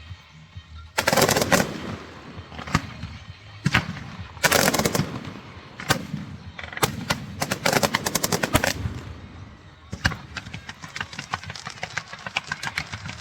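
Strings of firecrackers going off: dense runs of rapid sharp cracks in several bursts, then scattered single bangs near the end.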